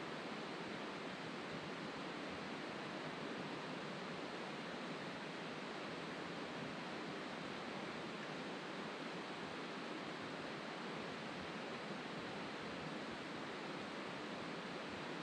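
Steady, even rush of running water.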